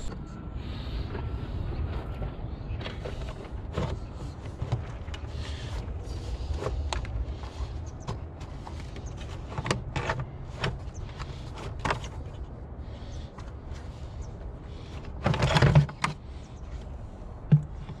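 A BMW 630i's plastic air filter housing being worked loose and lifted out of the engine bay: scattered plastic clicks and knocks, then a loud scraping rustle about fifteen seconds in as the box comes free, over a steady low rumble.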